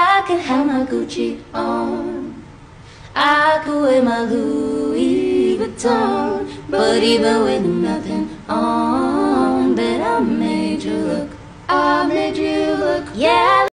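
A voice singing a melody, unaccompanied or nearly so, in phrases of a few seconds with short breaks between them.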